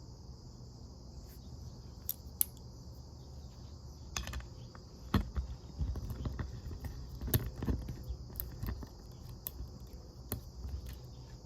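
Scattered clicks, taps and knocks from about four seconds in as a metal multitool and its bit driver are handled, over a steady background trill of crickets.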